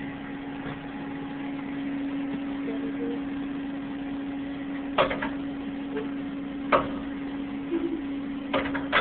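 Steady hum of machine-shop machinery, with a few sharp metallic knocks: one about five seconds in, one near seven seconds and a couple near the end.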